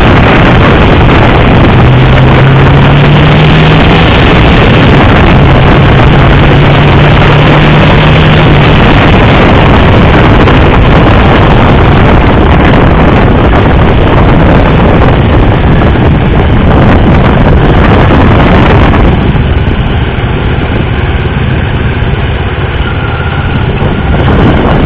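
Motorcycle at speed on a track, heard from a camera mounted on the bike: a loud, dense rush of wind and engine noise, with the engine note climbing slightly twice in the first nine seconds. The noise eases somewhat about nineteen seconds in.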